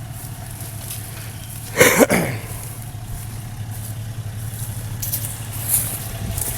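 An off-road 4x4's engine idles steadily. About two seconds in comes one brief, loud screech that falls in pitch, and a few faint clicks follow near the end.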